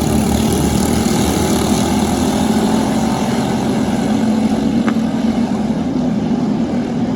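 Engines idling, a steady low drone that holds level throughout.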